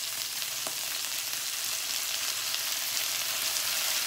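Chicken pieces sizzling steadily in their rendered fat in a stainless-steel Saladmaster skillet while chili sauce is spooned over them, with one faint click just under a second in.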